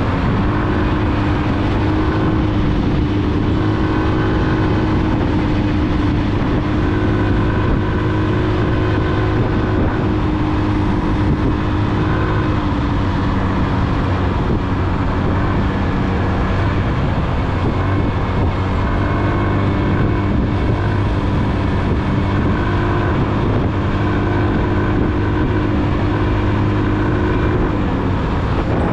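Motorcycle running along the road, a steady engine hum under a loud, even rush of road noise.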